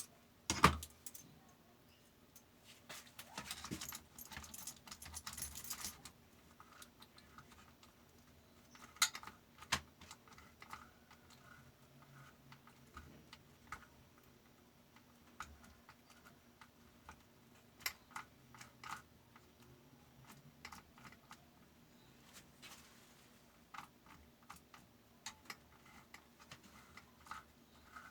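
Scattered small metal clicks and clinks from parts and tools being handled while servicing the sharpener of a fabric cutting machine, with a rustling, scraping stretch about three to six seconds in.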